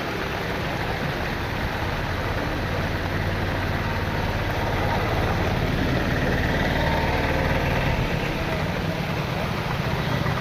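Heavy monsoon downpour: a dense, steady hiss of rain that swells a little midway, with a low steady hum underneath.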